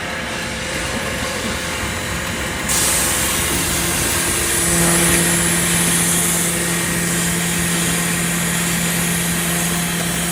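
Heavy machinery running steadily with a dense mechanical noise; a high hiss joins in about three seconds in, and a steady hum starts a couple of seconds later and holds.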